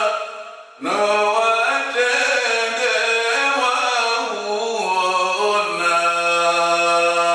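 A man chanting a verse of a poem in Comorian, solo and unaccompanied. After a breath about a second in, the melody winds and steps downward and settles on a long held low note near the end.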